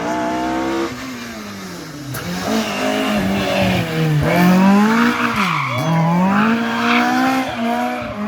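Historic rally car engine at high revs through a corner, its note falling, then rising, dipping sharply once, and climbing again as the driver lifts and gets back on the throttle, with tyres squealing and hissing on the tarmac.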